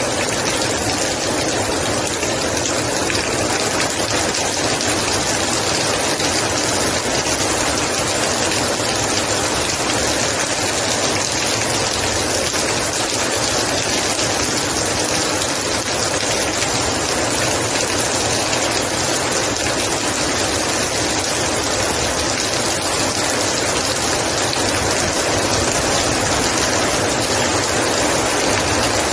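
Heavy rain falling steadily, a dense even hiss of downpour with no breaks.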